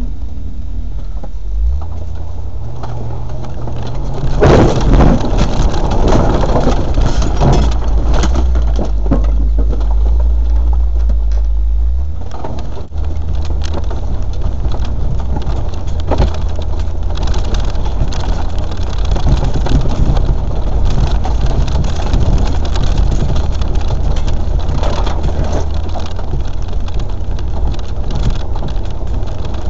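Land Rover engine running off-road at low revs, its note stepping up about two seconds in and dropping about twelve seconds in. From about four seconds in a loud rushing, crackling noise rides over it, with a few knocks.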